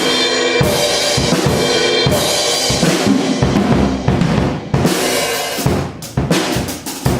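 An untuned, unmodified secondhand drum kit being played: bass drum, snare and cymbals, with cymbal wash ringing through the first half and quicker separate drum hits after. Its owner calls it awful and cheap and nasty sounding, singling out the snare.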